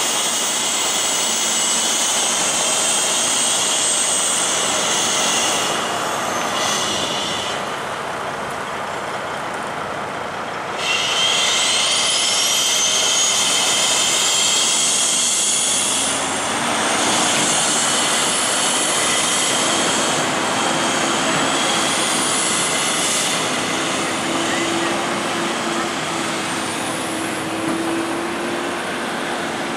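Semi truck hauling a boat on a low trailer, its engine running with a high whine that rises sharply in pitch about eleven seconds in and rises again several times after.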